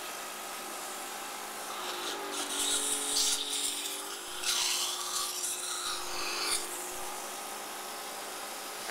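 Cough assist machine (mechanical insufflator-exsufflator) running with a steady motor hum. From about two seconds in come two long rushes of air through the hose and mask, a moment apart, as it cycles between pushing air into the lungs and pulling it back out to clear them.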